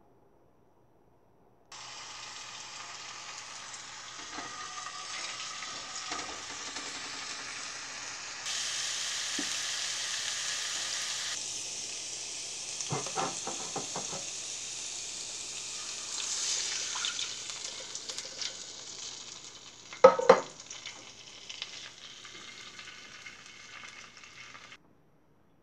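Minced garlic sizzling and frying in hot olive oil, starting about two seconds in and stopping just before the end. A few sharp knocks join it, the loudest about 20 seconds in.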